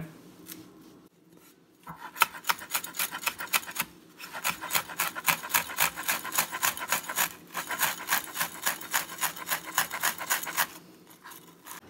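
Chef's knife rapidly chopping rosemary on a plastic cutting board: a quick, even run of knocks about five a second. It starts about two seconds in, pauses briefly near four seconds and stops shortly before the end.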